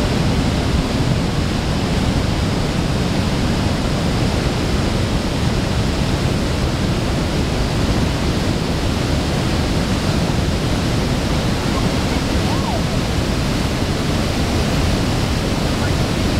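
Iguaçu Falls: a huge mass of water pouring over the falls into the gorge, a loud, steady rush of noise that never lets up.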